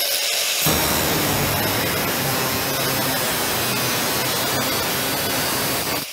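Angle grinder with a thin cut-off disc running: it spins free with a high hiss for a moment, then bites into the steel A-pillar and its lead-filled seam, giving a steady harsh cutting grind. It lifts off the metal near the end.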